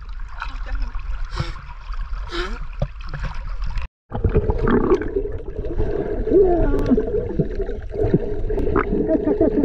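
Seawater sloshing and splashing around a camera held at the waterline, with a few short splashes. About four seconds in, the sound drops out briefly and becomes a louder, muffled underwater wash full of small bubbling and gurgling crackles.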